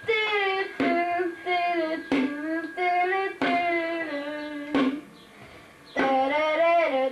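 A child blowing a homemade whistle made from a green plant stalk, sounding a string of held notes that step up and down in pitch. There is a short gap about five seconds in.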